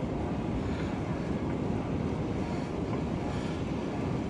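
Steady rushing noise of a fat-tyre electric bike riding across wet beach sand: wind buffeting the microphone, mixed with the rolling of the tyres.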